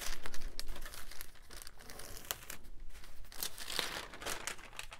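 Sheets of junk-journal paper rustling and crinkling as they are handled and folded, with irregular soft crackles.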